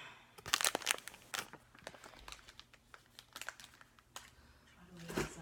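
Plastic candy-bar wrapper crinkling and crackling in quick, irregular snaps as it is handled and opened, densest in the first second or so. A short hum of voice comes near the end.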